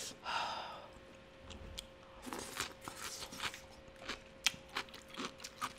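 Close-miked chewing of crunchy food, a quick run of crisp, irregular crunches from about two seconds in, after a short breathy sound at the start.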